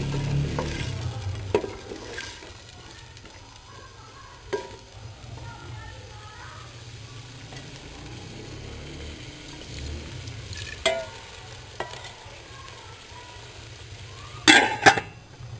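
Wooden spoon and ladle stirring potato and green chickpea curry in an aluminium pressure cooker pot over a faint sizzle. The stirring is loudest in the first second or so, with a few light clicks of the spoon against the pot, and two sharp knocks near the end.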